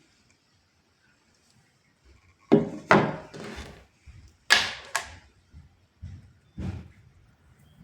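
A run of sharp knocks and clunks of hard objects: two loud pairs about two and a half and four and a half seconds in, then a few weaker knocks.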